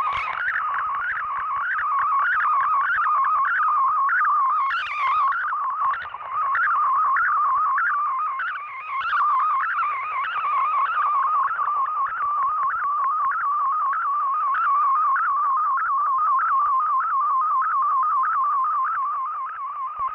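Shortwave digital text-mode data signal, an MFSK-type transmission, heard through a shortwave receiver's audio. It is a continuous warbling tone that hops rapidly between pitches over a narrow band, above a bed of radio hiss.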